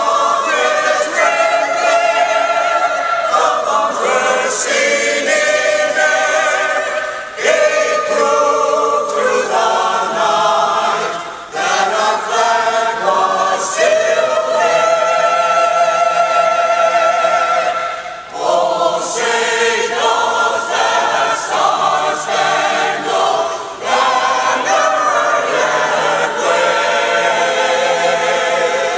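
Mixed choir of men's and women's voices singing unaccompanied, in sustained phrases with short breath pauses between them.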